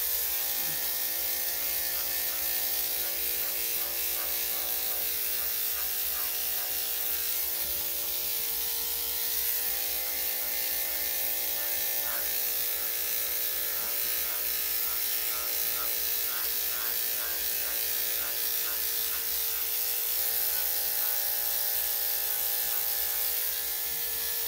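Electric dog grooming clippers running steadily, shaving through a dog's heavily matted coat.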